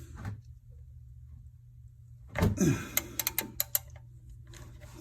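Metal tool clicks from a socket wrench with a T45 Torx bit working the oil drain plug loose: quiet at first, then a scrape about halfway through and a quick run of sharp clicks.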